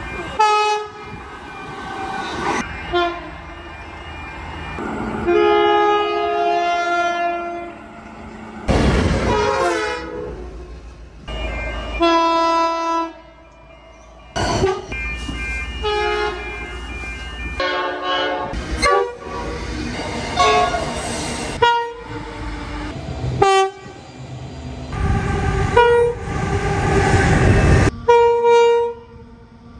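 A rapid series of train horn blasts, short clips cut one after another: locomotive air horns sounding chords of several steady tones, each stopping abruptly where the next clip begins. The noise of the passing trains runs underneath several of them.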